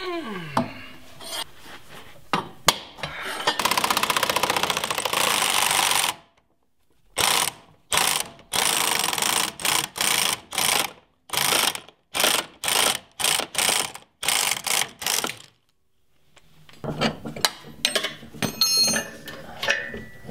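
Hand socket ratchet clicking as it backs out the front leaf-spring eye bolt: a long run of rapid clicking, then about a dozen short clicking strokes. Near the end, irregular metal clanking.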